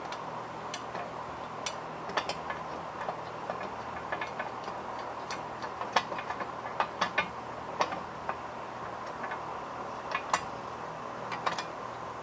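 Irregular light metallic clicks and taps of a wrench on a nut and the steering drag link hardware as the link is refitted, over a steady faint hum.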